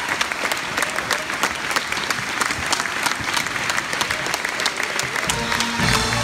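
Theatre audience applauding steadily, with dense clapping throughout. About five seconds in, the orchestra starts playing, its low sustained notes coming in under the clapping.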